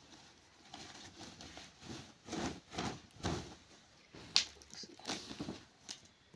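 Cloth rustling and swishing in a series of short sweeps as a crepe suit piece is unfolded, shaken out and spread flat, with one sharp tick a little past four seconds in.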